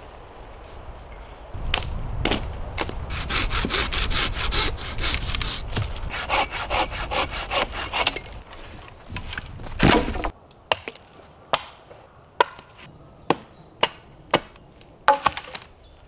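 Folding hand saw cutting through a thin birch branch in quick back-and-forth strokes for about eight seconds. The sawing then stops, and about seven sharp knocks follow, roughly one every second.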